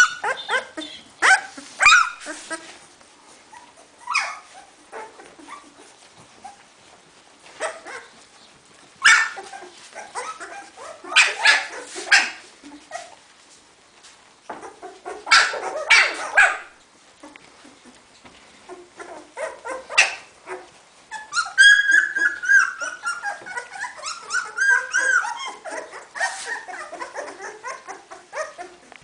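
Two-week-old puppies squealing and whining in short, high-pitched cries. Near the end the cries run together into a long stretch of wavering whines.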